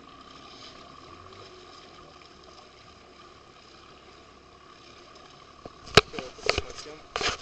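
Steady hiss of wind and water on open water, with a faint steady tone under it; about six seconds in come a few loud knocks and bumps.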